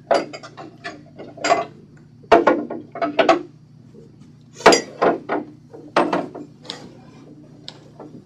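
Clatter of dishes and kitchen things being handled, a few sharp knocks among lighter clicks, as coffee is made.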